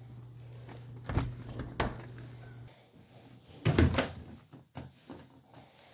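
Two sharp thumps, then about four seconds in a metal doorknob is turned and the door unlatched and pulled open, a cluster of clicks and knocks, with lighter clicks after. A steady low hum cuts off about two and a half seconds in.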